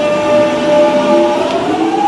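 London Underground train pulling away from the platform. Its traction motors whine in several steady tones, and a little past the middle these begin to rise in pitch as the train picks up speed.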